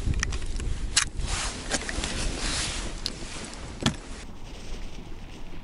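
Handling noise of a handheld digital hanging scale and a plastic bag of fish: rustling and a few sharp clicks, with a louder clack near four seconds in as the scale is set down on a tackle-box lid. Wind noise runs underneath.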